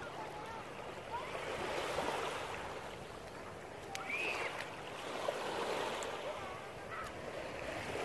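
Small waves washing up onto the beach, the surf swelling twice, with faint distant voices.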